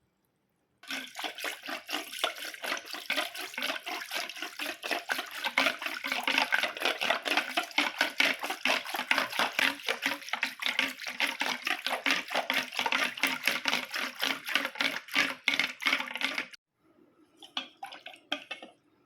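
Liquid splashing and sloshing in a vessel in fast, uneven strokes for about fifteen seconds, stopping suddenly, followed by a few faint drips.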